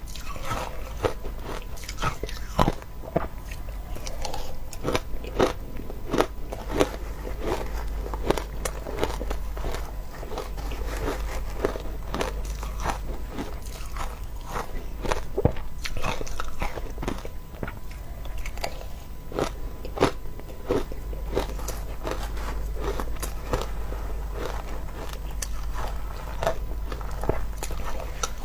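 Close-miked crunching and biting of shaved ice: frequent sharp crunches and crackles as mouthfuls of crushed ice are bitten and chewed, over a steady low hum.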